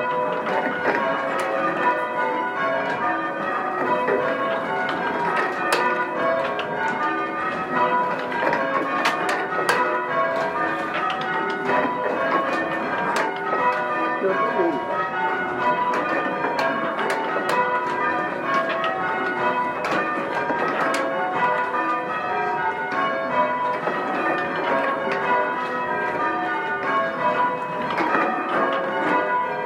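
A ring of six church bells from mixed founders rung full-circle in changes: a continuous, even run of bell strokes in shifting order, with occasional sharp clicks among them.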